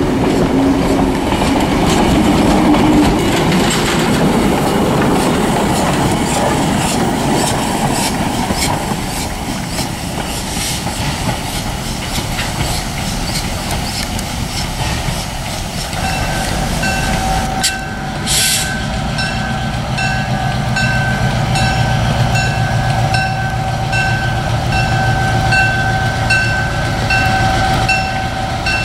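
Excursion train behind a 4-4-0 steam locomotive rolling past, its coach wheels clicking over the rail joints. After about sixteen seconds it gives way to a lower, steadier rumble of the train farther off, with a ringing tone repeating about once a second.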